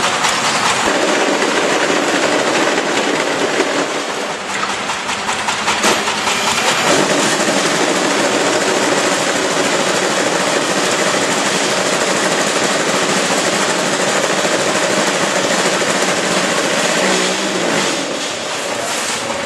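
Automatic concrete block making machine running: a loud, steady mechanical din that eases for a couple of seconds around four to six seconds in, comes back, and changes again near the end.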